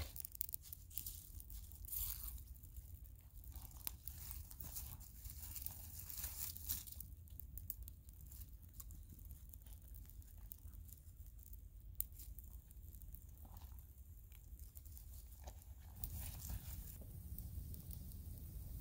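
Small kindling campfire of twigs and dry pine needles crackling and popping irregularly as small sticks are fed onto it.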